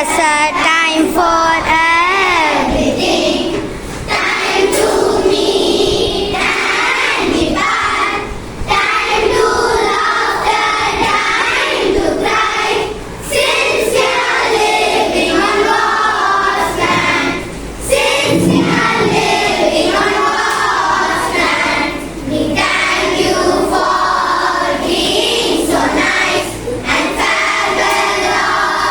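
A group of schoolchildren singing together in chorus, with short pauses between lines.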